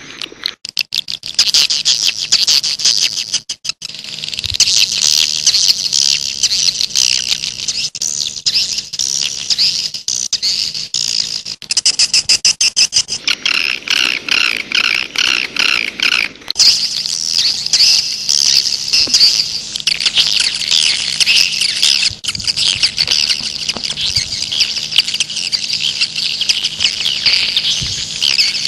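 A dense flock of swiftlets twittering in continuous high, shrill chirps, with runs of rapid ticking trills in the first few seconds and again about twelve seconds in. It is a swiftlet call recording of the kind played to lure wild edible-nest swiftlets.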